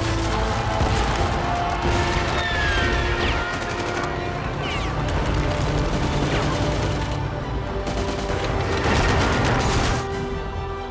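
Battle sound effects of a war-film trailer: dense gunfire and explosions over music with held notes. It builds to its loudest stretch near the end, then cuts off abruptly.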